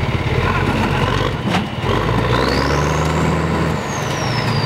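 Lifted monster truck's engine running and revving under load as it climbs onto a junked car, with a high whine that rises and then slowly falls in the second half.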